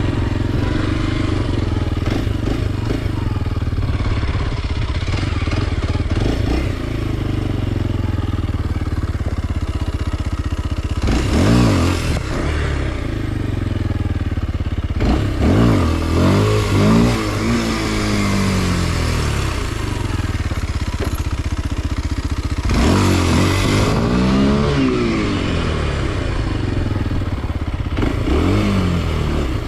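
2023 Kawasaki KLX 230 SM's single-cylinder four-stroke engine running under a rider, with several bursts of throttle where the pitch climbs and drops again, about a third of the way in, around the middle, and twice more in the later part.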